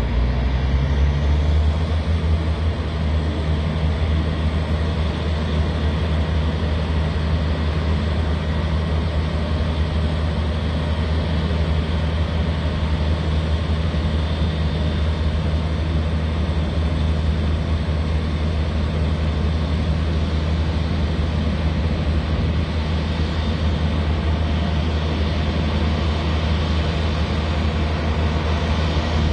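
Steady low drone of idling diesel fire-truck engines, mixed with the jet engines of an Airbus A350-1000 taxiing at low thrust.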